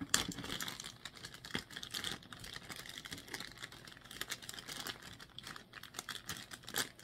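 Thin clear plastic bag crinkling and rustling in the hands as fingers pick at it to get a pair of earrings out, a busy, irregular run of small crackles and clicks.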